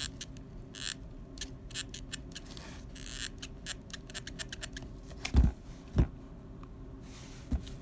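Quick, irregular clicking and short scrapes of a hot glue gun being worked along the edge of a corrugated cardboard piece, dot by dot. A little past halfway come two dull thumps as the cardboard is handled and set against the table, and a lighter one near the end.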